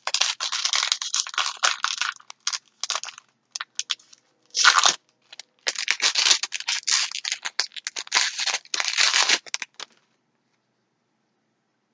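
Foil Magic: The Gathering booster pack wrapper being torn open and crinkled by hand, a run of crackling bursts with a short pause and a sharp tear about halfway through.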